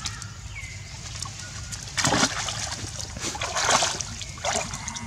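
Long-tailed macaques splashing in a shallow pool: three bursts of splashing, the loudest about two seconds in, and a faint thin whistle twice.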